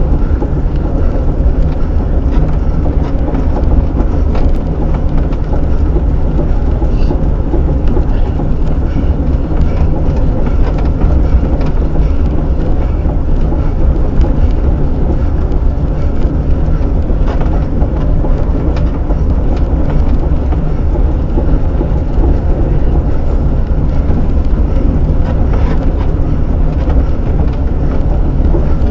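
Steady, loud rumble of a Milan SL velomobile riding at race speed, picked up by a camera mounted on its body, with faint scattered ticks.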